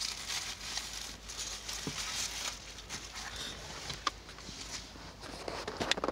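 Rustling and handling noise as cloth rags are shifted in a plastic bucket and a vinyl-covered owner's manual is pulled out, with a few sharp clicks and knocks near the end.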